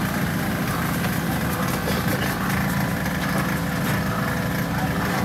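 Steady drone of a small engine running, with a light hiss of hot oil in a deep fryer over it.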